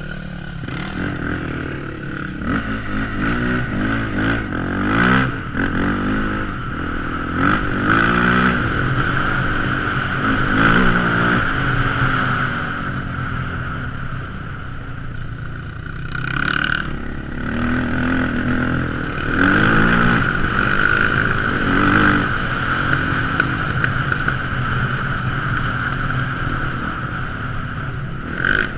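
Quad bike (ATV) engine running and revving up and down again and again, with a steady high whine underneath.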